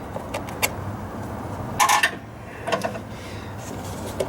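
Rubber intake boot being worked loose and pulled off the intake piping of a Cummins 4BT engine: scattered small clicks and rubbing, with a louder rub of rubber about two seconds in and a shorter one near three seconds.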